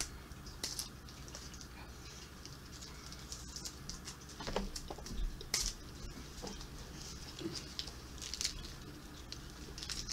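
Faint, scattered crinkling of a foil-lined wafer cookie wrapper being handled, in short irregular crackles.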